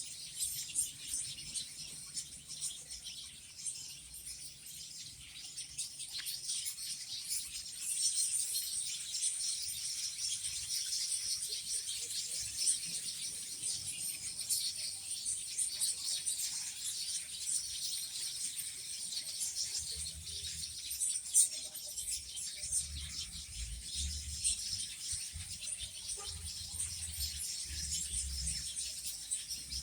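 Many small birds chirping and twittering together in a dense, continuous chorus of short high calls.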